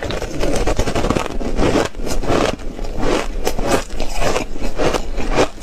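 Ice being crunched and chewed in the mouth, close to a clip-on microphone: crackly crunches about twice a second.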